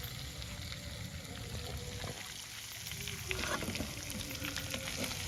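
Chicken pieces deep-frying in hot oil in a kadai: a steady sizzle with small crackles.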